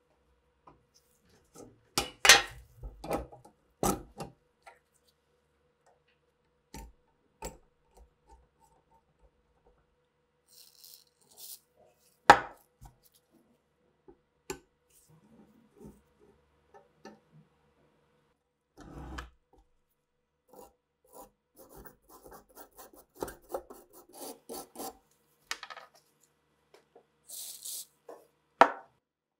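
Rusty iron parts of an antique balance scale clinking and knocking as they are handled, with a few sharp clicks. In the second half comes a run of short rasping strokes from a hand file on rusty metal.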